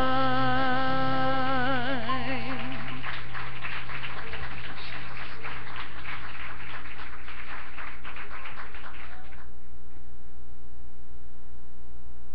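A singer holds the song's last word, "time", with vibrato over a sustained accompaniment chord, which ends after about two to three seconds. Applause follows for several seconds and stops, leaving a steady mains hum.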